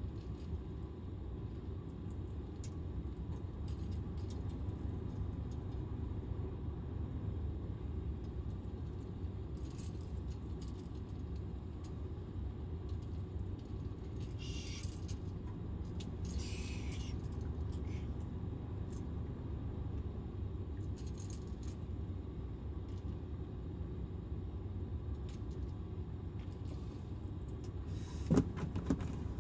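Steady low rumble inside a parked van's cabin, with small clicks and rustles of fishing line and a lure being handled. There are two short rustles about halfway through and a few sharper clicks near the end.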